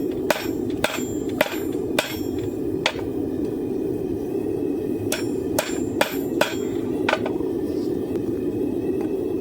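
Hand hammer striking hot coil-spring steel on an anvil, about ten sharp ringing blows in two runs with a short pause between, over a steady rushing noise.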